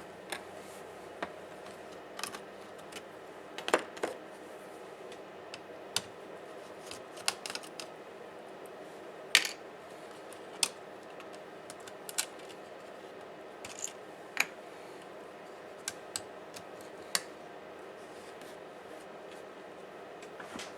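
Irregular small clicks and taps of hand tools and parts being handled while a laptop is taken apart, over a steady faint hum. The clicks come one at a time, a second or two apart, the loudest about four and nine seconds in.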